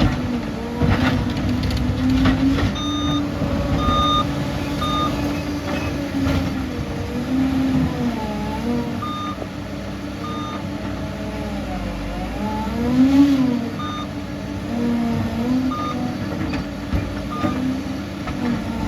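Bulldozer diesel engine working, its pitch rising and falling with load, while a reversing alarm beeps repeatedly, roughly once a second.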